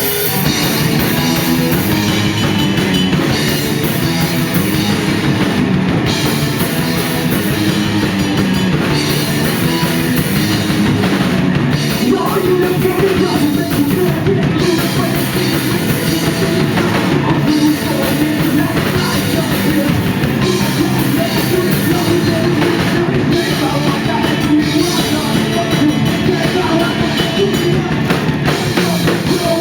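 Punk rock band playing loud live, with a drum kit, bass and electric guitar going continuously.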